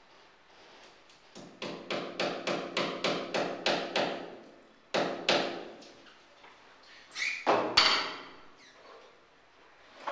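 A rapid run of sharp knocks, about four a second, each with a short ring, then two single strikes and a louder cluster of knocks near the end.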